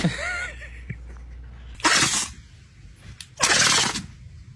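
A dog sneezing three times: a sharp sneeze at the start, then two longer sneezes about two and three and a half seconds in.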